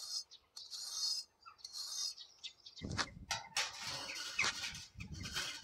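A soft firebrick rubbed back and forth on brick paving to sand it down so it fits: several short rasping strokes in the first two and a half seconds. About three seconds in, a louder, fuller scraping with a few knocks takes over as a brick is handled against the drum wall.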